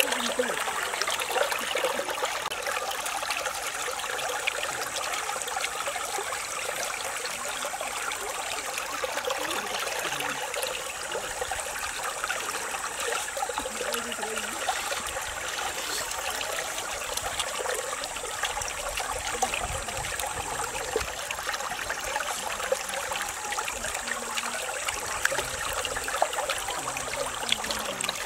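A shallow stream trickling and flowing steadily, an even rush of water.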